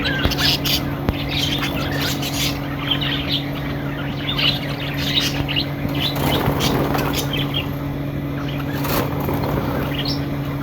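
A pair of lovebirds chirping, with many short, high chirps in quick succession, over a steady low hum.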